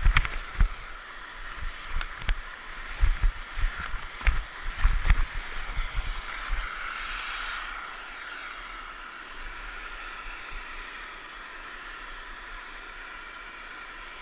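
Skis scraping and chattering over choppy snow, with wind buffeting a helmet-mounted camera's microphone. Low thumps and sharp knocks come over the first six seconds or so, then it settles into a steadier hiss.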